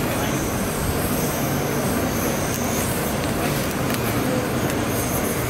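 Handheld butane gas torch burning with a steady hiss as it sears a scallop in its shell.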